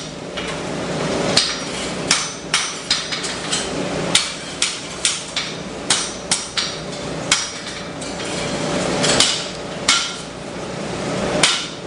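Hand hammer striking a hot steel bar on an anvil as it is forged from square to octagonal and on toward round: a run of sharp, ringing blows at an uneven pace of roughly two a second.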